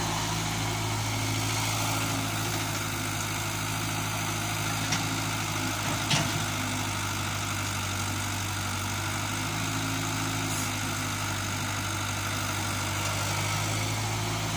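Caterpillar E70 excavator's diesel engine running at a steady idle, with a small knock about six seconds in.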